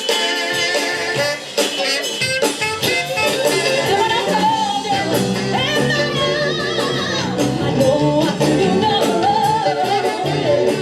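A soul band playing with a lead singer, Motown-style, with drums and guitar. A deeper bass part comes in about halfway through.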